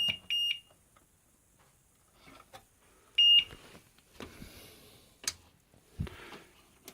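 High-pitched electronic beeps from the PC power supply's protection alarm: two quick beeps, then a single beep about three seconds later. They signal a short circuit on the connected graphics card. A sharp click and a low thump come near the end.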